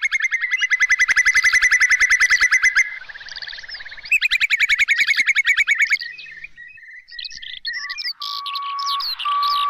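Whimbrel calling: two long rapid trills of evenly repeated whistled notes, the second starting about four seconds in, followed by fainter scattered notes. Near the end other high chirps and a repeated steady whistle come in.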